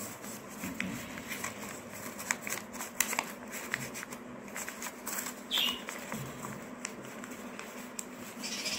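White paper rustling and crinkling in the hands as it is folded and a flap is pushed inside and pressed down, with scattered small crackles and clicks.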